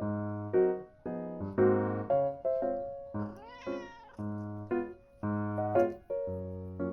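Soft lofi background music of plucked, piano-like notes, with a cat meowing once, rising then falling in pitch, about halfway through.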